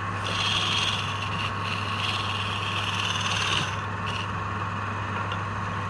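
Wood lathe motor running steadily while a turning tool scrapes against the spinning wood. The cutting comes in a long stretch broken once, stops a little after halfway, and returns briefly about four seconds in.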